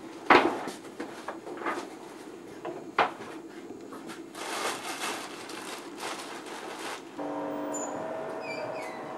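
Two sharp knocks at a changing-room locker, the first just after the start and the second about three seconds in, with clothes rustling between them. Near the end a steady, even hum of room ambience takes over.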